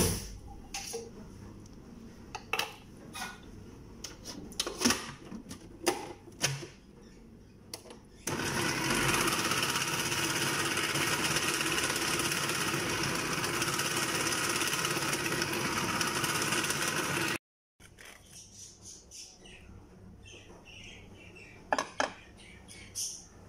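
Food processor motor running steadily for about nine seconds, whipping a cream and condensed-milk topping in its plastic bowl, then cutting off abruptly. Before it starts there are scattered clicks and knocks of the plastic bowl and lid being handled, and after it only faint taps.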